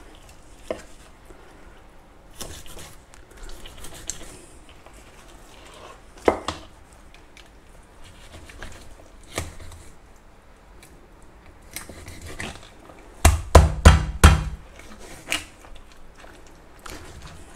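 Large kitchen knife cutting a John Dory on a plastic cutting board: scattered taps and scrapes, then a quick run of hard chops about two-thirds of the way through as the blade knocks through the fish onto the board.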